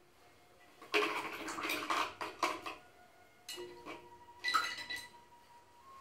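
Paintbrushes rattling and clinking against a glass jar in two bursts, one about a second in and another about three and a half seconds in, with short ringing notes from the glass.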